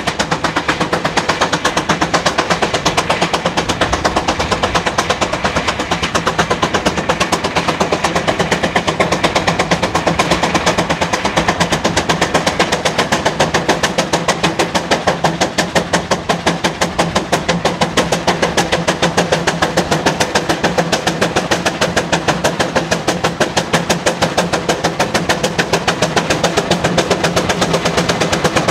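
An engine running with sharp, evenly spaced exhaust beats at a steady pace of about five a second.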